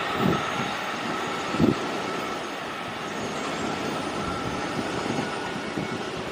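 JR Jōban Line electric commuter train running away along curved track, a steady rumble of wheels on rails with a faint steady whine. Two low thumps come in the first two seconds, and the sound fades slowly as the train recedes.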